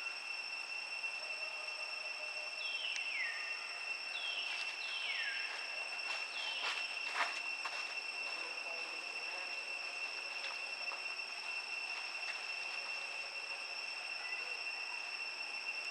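Steady high-pitched insect drone, like a cricket or cicada, running throughout. Several short calls slide downward in pitch between about three and seven seconds in, with a few sharp clicks around the middle.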